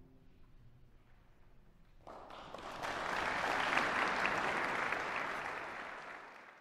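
Audience applause after a choral piece: after a short hush it starts about two seconds in, swells, and fades away near the end.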